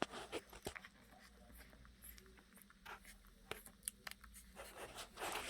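Week-old mini Bernedoodle puppies suckling at their mother's teats: faint, irregular wet smacking and clicking. They are pulling to stimulate her before the milk lets down.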